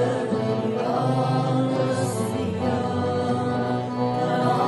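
Arabic Christian hymn for Lent, sung with sustained chanted voices.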